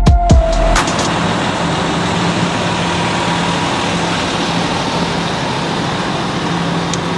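Electronic music with a heavy beat cuts off about a second in. It gives way to the steady running sound of a Kenworth semi-truck's diesel engine idling close by, an even rumble with a low hum.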